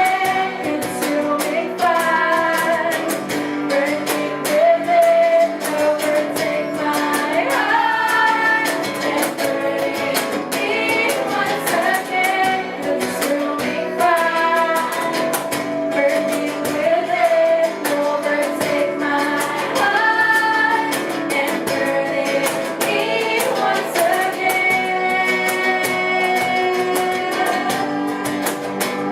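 Music: a singer with plucked guitar accompaniment.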